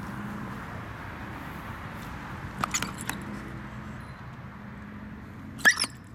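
A corgi snarls and snaps at a gloved hand pushed toward its face, an aggressive warning reaction. There are two short, sharp outbursts, one about two and a half seconds in and a louder one near the end, over a steady background hum.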